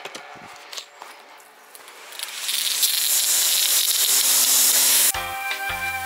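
Pressure washer jet spraying with a loud, steady hiss that starts about two seconds in and cuts off abruptly about three seconds later. Background music with a beat follows near the end.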